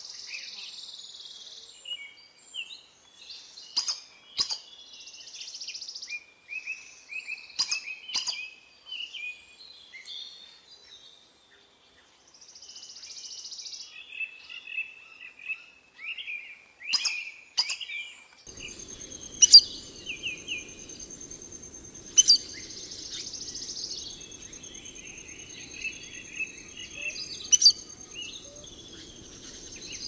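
Forest birds chirping and calling, with sharp, high calls that often come in quick pairs about half a second apart. About two-thirds of the way in, a steady high insect buzz and a low rumble join.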